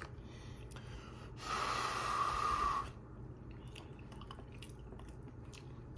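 A man's long breath of about a second and a half, hissing with a whistling, wheezy note that falls slightly in pitch. A few faint mouth or chewing clicks follow.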